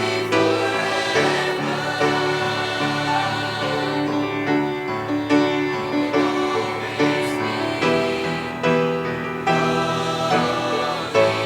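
Choir singing a worship song with instrumental accompaniment, the voices held in sustained harmony over a steady beat.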